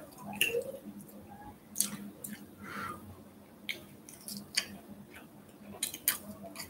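A person eating with a metal fork from a glass plate: scattered sharp clicks and scrapes of the fork on the plate, with chewing and mouth sounds between.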